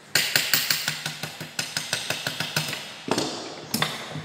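Quick hammer blows on a thin galvanized iron sheet clamped in a bench vise, about six a second, folding over the sheet's edge. A couple of heavier blows come near the end.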